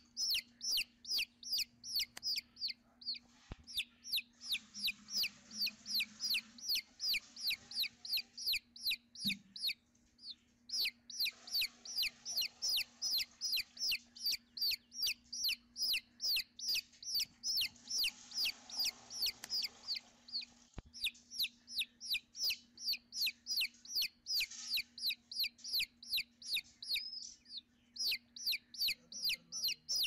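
Nestling birds begging for food: a rapid, steady series of high, downward-sweeping chirps, about three a second, with brief pauses about ten seconds in and near the end.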